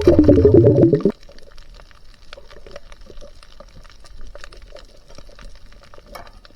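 Underwater bubbling, loud for about the first second, then dropping to a quieter stretch with many faint scattered clicks.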